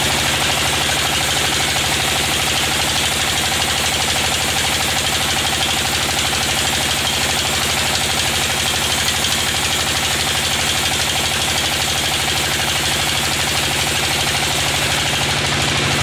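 Sawmill band saw running steadily, its blade cutting lengthwise through a teak log.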